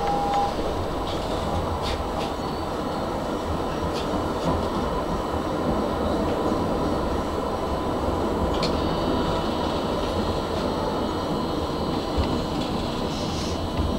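Tram running slowly along street track, heard from inside at the front: a steady rumble of wheels on rail with a few sharp clicks over rail joints and points. A faint high wheel squeal sets in about nine seconds in.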